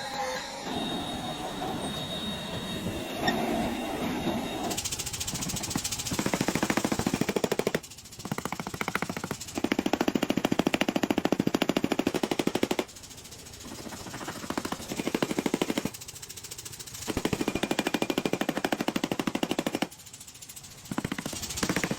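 Power hammer pounding hot steel with rapid, evenly repeated blows, in bursts of a few seconds separated by short pauses.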